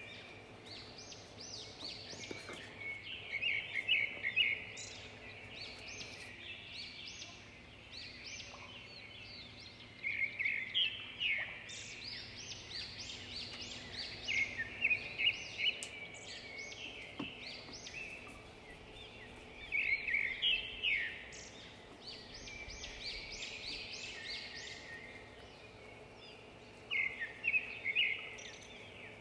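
Small birds chirping and twittering in clusters of quick high notes that come back every few seconds, over a faint steady background hum.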